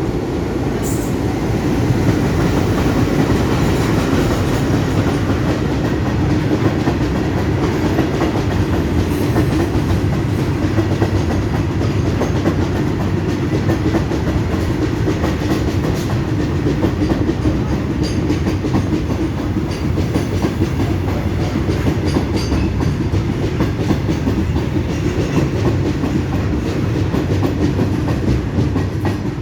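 Goods train passing, its wagons rolling by with a steady rumble and the clickety-clack of wheels over the rail joints.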